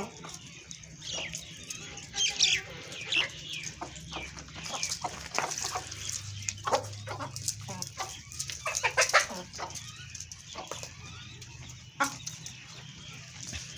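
Chickens clucking and chirping in a flock, with many short irregular calls overlapping.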